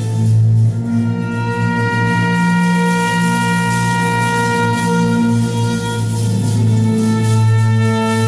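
Two violins and a trumpet playing long held notes together over a steady low drone, the pitches shifting slowly.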